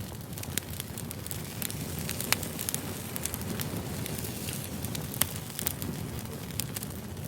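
Firewood burning: a steady low rumble with frequent sharp crackles and pops. Two louder pops stand out, about two seconds in and about five seconds in.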